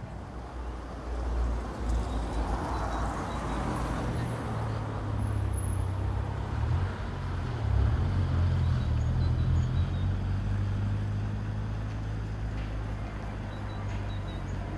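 Road traffic ambience: a steady low rumble of vehicles, with a louder swell of passing-vehicle noise about two to four seconds in.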